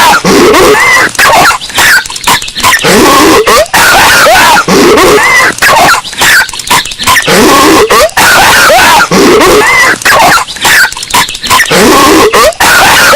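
Patrick Star, the SpongeBob SquarePants cartoon character, coughing with a raspy voice that rises and falls in pitch. The same short clip repeats over and over, about every three and a half seconds, and is boosted so loud that it distorts.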